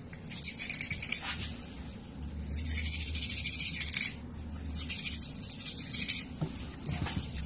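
Toothbrush bristles scrubbing a cat's teeth: rapid scratchy brushing in about four spells of one to two seconds each, with short pauses between them.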